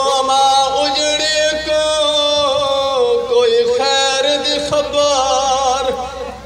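A man's voice chanting a Punjabi masaib lament in long, wavering held notes, easing off near the end.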